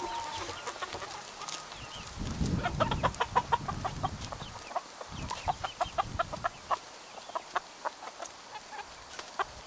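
Chickens clucking: a long run of short, quick clucks.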